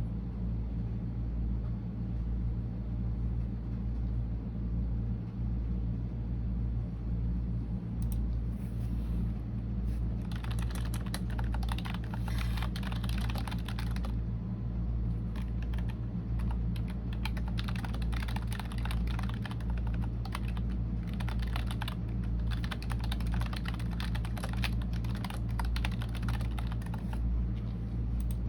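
Typing on a computer keyboard: runs of rapid key clicks that start about a quarter of the way in, break off briefly about halfway, then carry on until near the end, over a steady low rumble.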